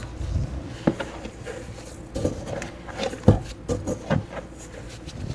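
Latex-gloved hands mixing and squeezing sticky bread dough in a stainless steel bowl: irregular squelches and soft knocks against the bowl, the loudest about three seconds in.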